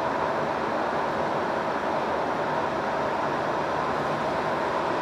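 Steady road and engine noise in the cab of a Hino Profia truck driving through a long undersea road tunnel, a constant rushing drone with no change in level.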